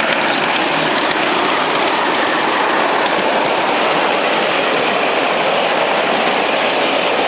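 Ride-on 5-inch gauge miniature train with a Thomas-style locomotive and loaded passenger cars rolling past: a steady rumble of wheels on the steel track.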